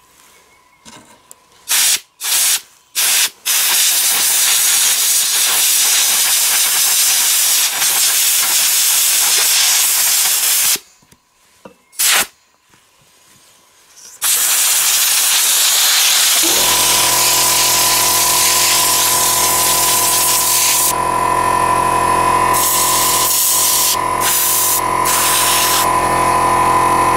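Compressed-air blow gun blasting air through a dirty pleated engine air filter to blow the sand and dust out: a few short blasts, then long continuous hissing blasts with a break about eleven to fourteen seconds in. About sixteen seconds in, a steady motor hum with a high whine starts up under the hiss.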